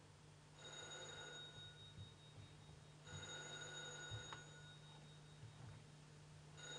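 A telephone ringing faintly, three rings a few seconds apart.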